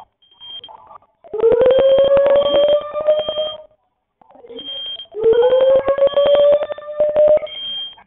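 Fire alarm going off in two long, buzzing blasts of about two seconds each. In each blast a low tone rises a little in pitch at the start, and short high beeps sound on and off throughout.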